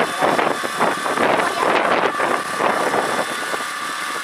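A small engine on an electrofishing boat running steadily, with wind buffeting the microphone.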